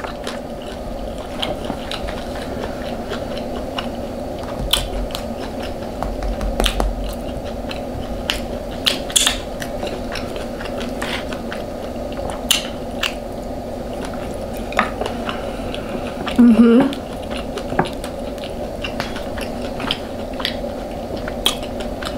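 Close-miked chewing and biting of food, with many short crunchy clicks, over a steady low hum. A brief hum of voice comes about two thirds of the way through.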